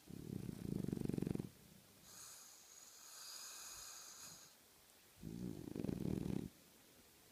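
French bulldog snoring in its sleep: two loud, rattling snores about five seconds apart, with a softer breath between them.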